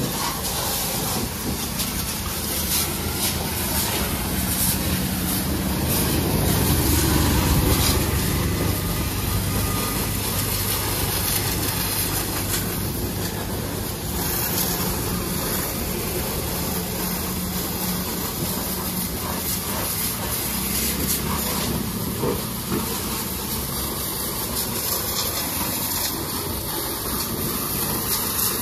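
High-pressure water jet hissing steadily as it sprays a tractor's tyres and body, with a low machine hum beneath. It swells briefly about seven seconds in.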